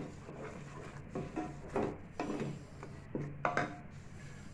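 Spoon stirring and scraping thick masala against the sides of an aluminium pot while it sautés, a series of irregular scrapes and knocks.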